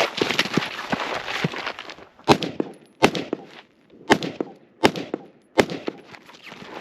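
Rustling and clattering of movement for about two seconds, then five rifle shots from a Khaos rifle, spaced roughly three-quarters of a second to a second apart, one at each of five targets.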